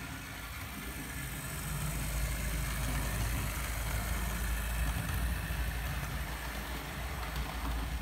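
HO-scale model steam locomotive and coach running past on the layout's track: a steady electric-motor hum and the rumble of wheels on rails, growing louder through the middle as the train passes closest.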